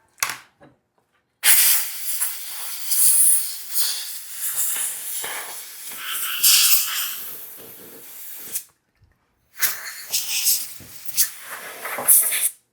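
Air blower hissing in blasts as it blows dust out of a laptop's fan and internals. A brief puff comes first, then a long blast of several seconds that rises and falls in strength, and near the end a run of shorter blasts.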